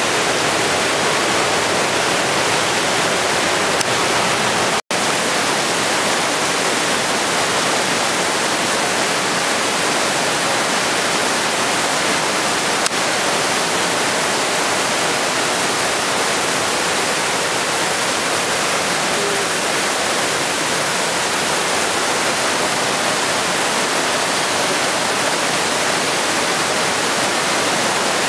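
Hammersbach mountain torrent rushing and spraying through a narrow rock gorge, a loud steady roar of white water. The sound cuts out for an instant about five seconds in.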